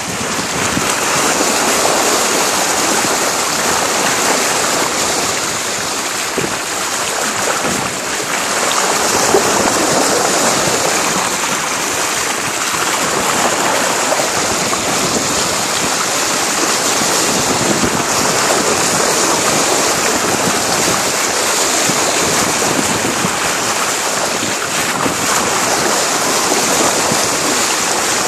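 Bow wave of a sailboat under way, water rushing and splashing steadily along the hull.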